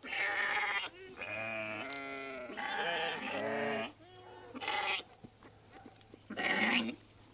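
Katahdin ewe and her newborn lamb bleating back and forth, about six calls of varying length: the ewe is anxious while her lamb is being handled and tagged.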